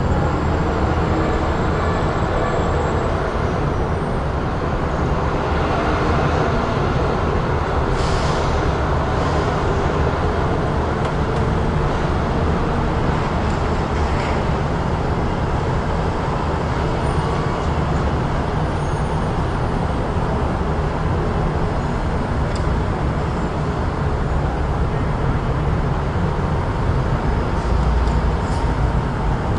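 Busy city street traffic: a steady low rumble of passing vehicles, with a brief hiss about eight seconds in.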